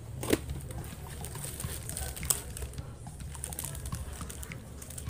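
A cardboard box being handled and a strip of plastic sachets pulled out of it: scattered taps, clicks and crinkling, with a sharp click about a third of a second in and another a little past two seconds.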